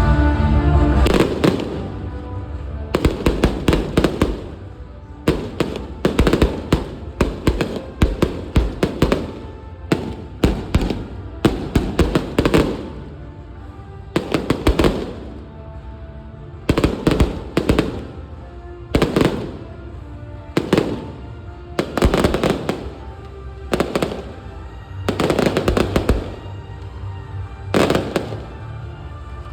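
Aerial fireworks bursting and crackling in quick runs of many sharp reports every second or two, with music playing underneath.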